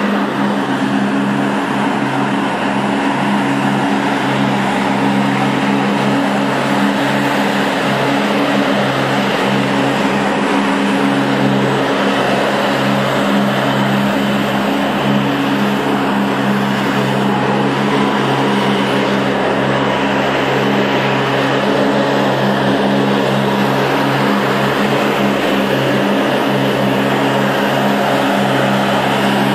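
A ride-on floor-cleaning machine running with a loud, steady hum: a constant low drone with a rushing noise over it, unchanging throughout.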